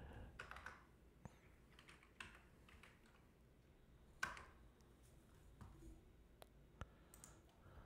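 Faint computer keyboard keystrokes: a few separate key presses spread out, the loudest about four seconds in.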